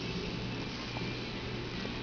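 Steady room noise, a low hum with a light hiss, between a newborn's hiccups. A faint soft click comes about a second in.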